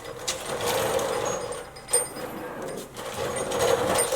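Chisel working the steel sleeve of a leaf spring bushing out of the spring eye: scattered sharp metallic clicks and knocks, one louder strike about two seconds in, over a steady low hum.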